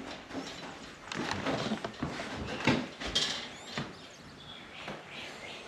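Irregular knocks, clicks and rustling from people moving about a small room.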